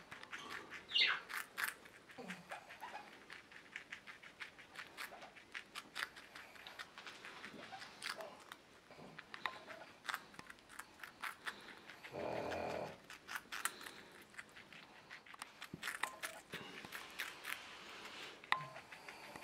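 Baby skinny pig gnawing and chewing a cube of raw beet, close up: irregular small clicks of its teeth on the beet, several a second. A brief muffled sound comes about twelve seconds in.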